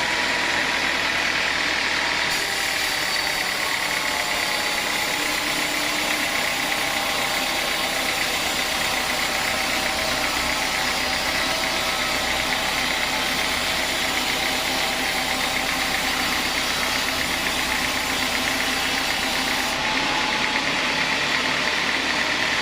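Sawmill saw running steadily with an engine hum under it. A brighter hiss comes in about two seconds in and falls away near the end, as the blade cuts through teak.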